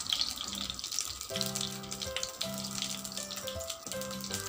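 Cooking oil sizzling and crackling as it heats in a kadai, with a steady hiss and many small pops. Background music with held melody notes comes in about a second in.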